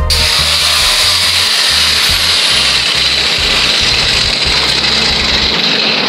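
Angle grinder with a cut-off wheel cutting through the rusted steel of a Ford Mustang's front end: a loud, steady, high-pitched grind that starts abruptly.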